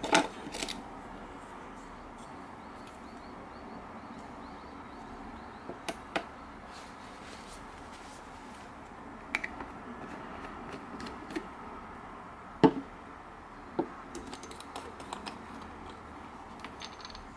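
Scattered light clicks and knocks of small objects being handled and set down on a work board: leather strips, plastic spring clamps and a small jar. The sharpest knock comes about two-thirds of the way in, over a steady faint hiss.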